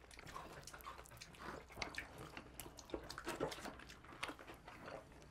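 Soft, close-miked chewing and biting of thin-crust pizza, a string of small clicks and crunches.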